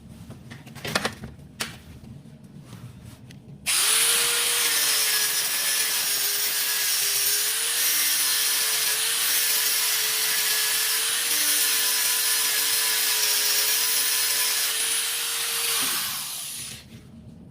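Small electric grinder running, grinding down built-up spark-surfacing weld on a casting repair: a steady whine with a wide hiss that wavers slightly under load, starting about four seconds in and winding down near the end. A few light knocks come before it starts.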